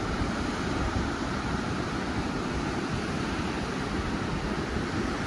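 Wind buffeting the microphone over the steady wash of ocean surf, a continuous rushing noise with gusty low rumble.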